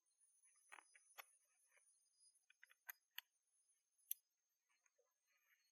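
Faint, irregular metallic clicks of an M1879 Reichsrevolver being loaded through its loading gate at half-cock, as cartridges go into the chambers one by one and the cylinder is turned. There are about a dozen small clicks, the loudest a little after four seconds in.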